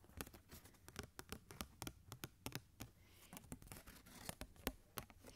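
Quiet, close-miked handling of a printed wand box: fingernails tapping and scratching over its surface in a dense, irregular run of sharp little clicks and scrapes.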